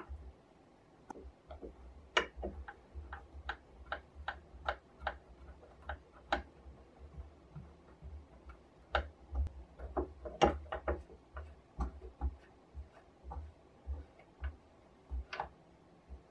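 Rusty knurled nut being turned by hand along a corroded threaded steel rod, giving irregular small clicks and scrapes, several a second, with the loudest about two-thirds of the way through.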